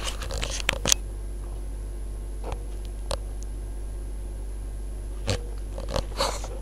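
Samsung WF9700N3W front-loading washing machine on its wool cycle: a steady low hum from the turning drum, with scattered short clicks and brief swishes from the wet blankets and water inside it.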